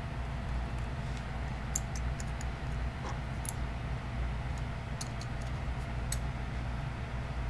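Scattered light clicks and taps of small metal utility knives being handled, over a steady low hum.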